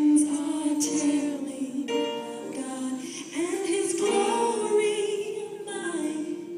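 Worship song playing for the dance: voices singing long held notes with vibrato.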